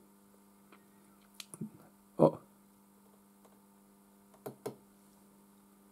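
Steady low electrical hum from bench electronics, with a few faint clicks and one sharper click about two seconds in.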